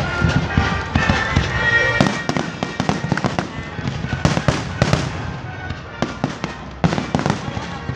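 Aerial fireworks going off in quick succession: a run of sharp bangs and crackles, some single and some in rapid clusters, with music under them.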